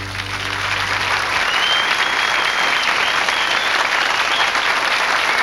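Audience applauding, building over the first second as the band's last held chord fades out.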